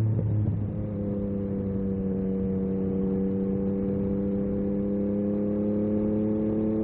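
Yamaha MT-09 SP's 890 cc three-cylinder engine running through an Akrapovic carbon racing exhaust while riding. The note changes about half a second in, then holds a steady tone that rises slowly as the bike gently gathers speed.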